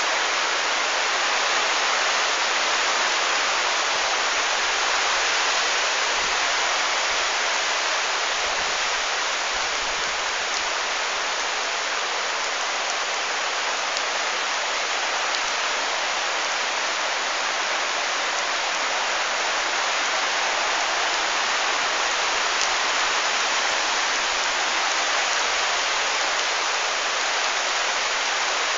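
Heavy rain falling steadily on trees, leaves and wet garden ground: a dense, constant hiss with no let-up.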